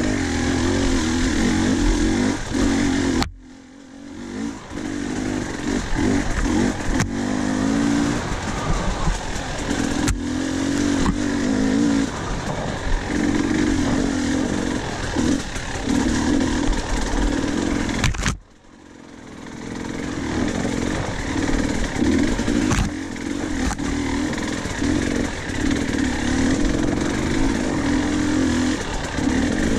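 KTM 300 two-stroke enduro bike engine revving on and off as the throttle is worked every second or so on singletrack. Twice, about three seconds in and about eighteen seconds in, the sound drops away suddenly and then builds back up over a second or two.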